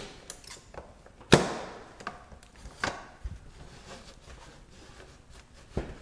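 Hand and wet towel knocking and clicking against the plastic dispenser recess of a refrigerator door while it is wiped clean: a few sharp knocks, the loudest just over a second in, with faint rubbing between them.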